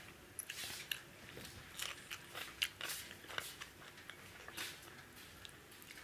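Close-miked mouth sounds of a person chewing a mouthful of chicken curry and rice, in irregular clicks, the sharpest about two and a half seconds in.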